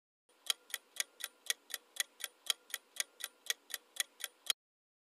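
Clock-ticking sound effect marking a quiz countdown timer: even, sharp ticks about four a second for some four seconds, then stopping abruptly.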